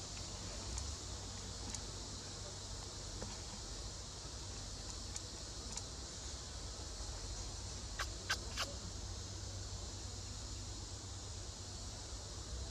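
Steady high-pitched drone of forest insects, with three sharp snaps in quick succession about eight seconds in.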